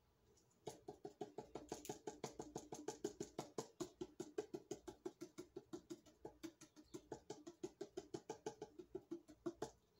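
Fingers tapping rapidly and evenly on the bottom of an upturned plastic flip cup full of acrylic pour paint resting on a canvas, about six taps a second. The tapping starts about half a second in and stops just before the end.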